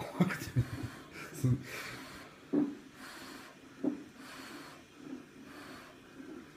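A woman in labour breathing hard through an oxygen mask, a string of short heavy breaths, some with a low voiced grunt or moan, about a second apart.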